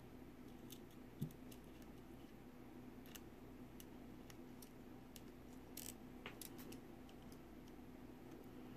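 Near silence with scattered faint clicks and light knocks from small metal axle parts being handled: the axle barrel and drive pin being picked up and fitted. There is a dull knock about a second in and a few clicks together around six seconds, over a faint steady hum.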